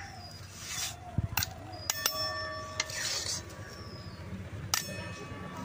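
Metal spatula scraping a thick paste around an aluminium kadai and knocking against the metal, giving a handful of sharp clinks. One clink about two seconds in leaves a bell-like ring.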